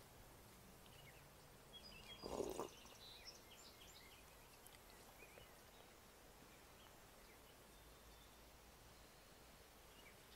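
Near silence with faint background hiss, a few faint bird chirps, and one brief soft bump about two and a half seconds in.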